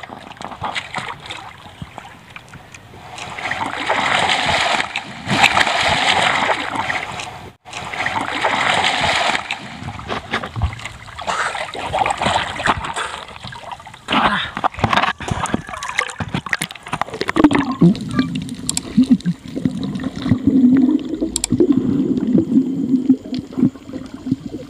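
Sea water splashing and sloshing around a diver treading water at the surface, loudest in two spells a few seconds in. Near the end the sound turns muffled and low, as heard underwater.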